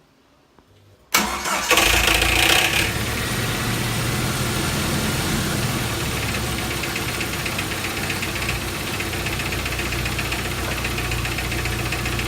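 1999 Jeep Wrangler TJ engine cranked and started about a second in, catching quickly and settling into a steady idle.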